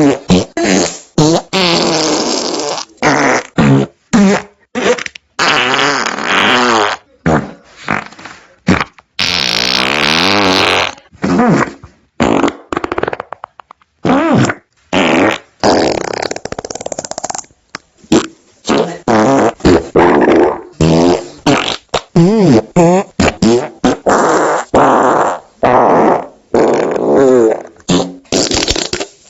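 A rapid string of dozens of fart sounds played back to back, each cut off sharply. They vary in length from short blips to drawn-out ones a second or two long, with a wobbling, rasping pitch.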